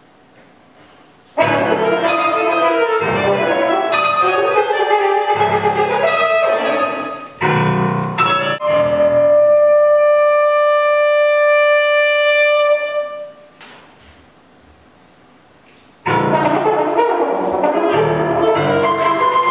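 Chamber trio of clarinet, French horn and piano playing contemporary concert music. It enters about a second in with busy, stop-start phrases, then a long held note, then a pause of about two seconds before the music starts again.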